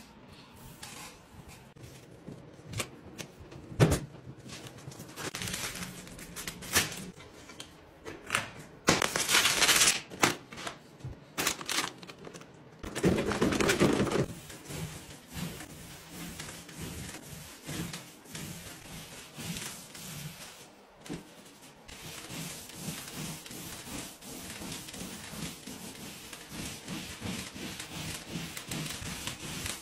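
Hand work on a wall: scattered clicks and knocks with scraping, two louder scraping stretches partway through, then a steady, repeating rubbing from about halfway on.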